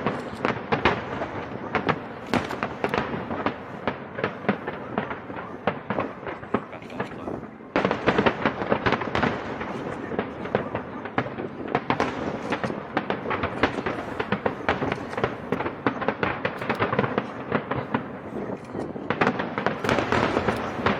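Fireworks display: a dense, continuous crackle of many shells bursting and popping in rapid succession, growing suddenly louder about eight seconds in and again near the end.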